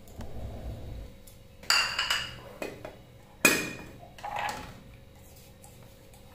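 Kitchenware being handled: a small bowl, a steel mixing bowl and a spoon at a plastic salt jar. Two sharp clinks about two seconds apart, each ringing briefly, with softer scraping and handling sounds around them.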